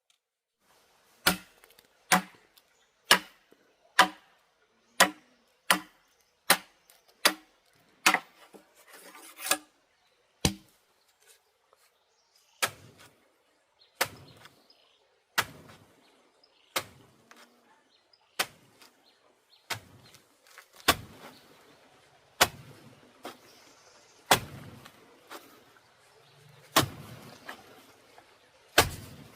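A long series of sharp chopping strikes, about one a second at first, then slower and spaced by rustling.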